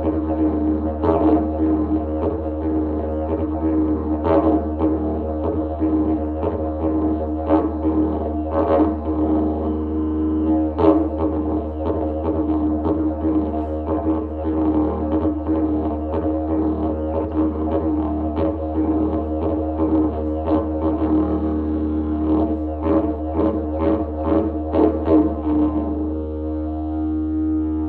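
Didgeridoo playing a steady low drone, broken by frequent rhythmic accents. Near the end the accents stop and the plain drone carries on.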